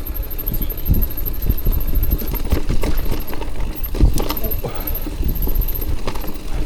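Mountain bike riding down a rough, wet dirt trail: a steady rumble of tyres and ground, with the chain and frame rattling and sharp knocks from bumps, one heavier knock about four seconds in.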